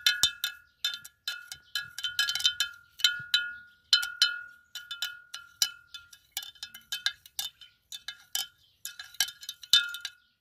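Metal spoon stirring in a glass jar of water, striking the glass again and again in quick, uneven ringing clinks as succinic acid crystals are stirred in to dissolve.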